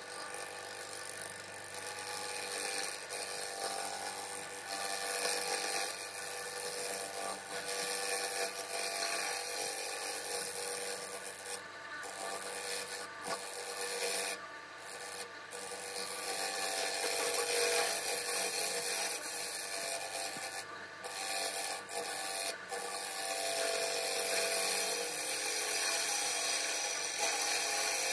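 A turning tool cutting the outside of a spinning segmented wooden bowl blank on a lathe: a continuous scraping cut, broken by several brief gaps near the middle as the tool comes off the wood, over the faint steady hum of the lathe.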